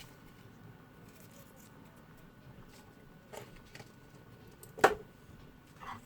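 Quiet kitchen handling at the stove: a few light clicks and taps from utensils. The sharpest comes about five seconds in.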